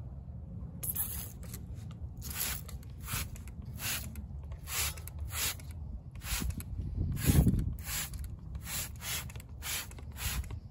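Hand trigger spray bottle spraying wheel cleaner onto an alloy wheel in quick short squirts, about two a second, with wind rumbling on the microphone underneath.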